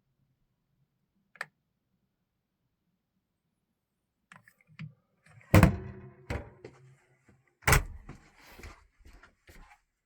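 A single click, then a few seconds later a run of knocks and clatter with two loud bangs, the sound of a door or cabinet being worked open and shut.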